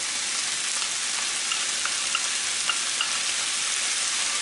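Onions, chickpeas and potato sizzling in olive oil in a wok over a high gas flame, just after tamarind pulp has been added. A wooden spoon stirs them, with a few faint ticks about halfway through.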